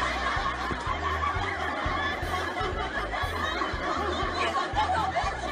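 Crowd laughter, added as a laugh track, over background music with a steady bass beat.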